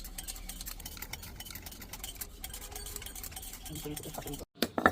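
Rapid small clicks and taps of handwork with small metal pieces over a low hum, with faint voices; after a brief cutout near the end comes one louder metallic clink.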